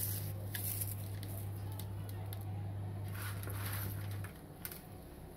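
A steady low electrical hum that stops about four seconds in, with faint light rustles and soft clicks over it.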